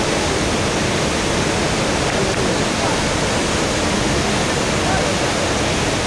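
Steady, dense rush of a large waterfall and the river rapids above it, an even wash of water noise with no breaks.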